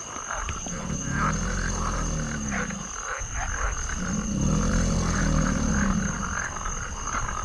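Deep, drawn-out animal roar, used as the video's alligator, heard twice and each time lasting about three seconds. A steady high-pitched tone runs behind it.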